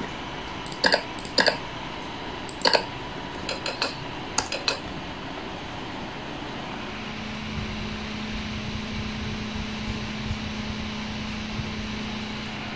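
Several sharp clicks in the first five seconds. Then, from about seven seconds in, a steady low hum sets in: a Rayden 80 mm 12 V DC cooling fan running under the Arduino's temperature-based speed control.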